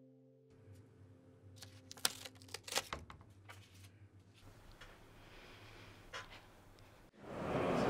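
A quick flurry of light, sharp clicks and taps over quiet room tone, then a few scattered clicks. Near the end a loud, noisy ambience swells in.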